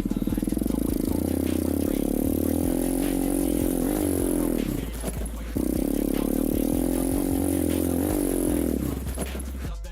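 Irbis TTR 125 pit bike's single-cylinder four-stroke engine running at steady revs while riding, dropping in pitch about five seconds in, picking back up suddenly, and easing off again near the end.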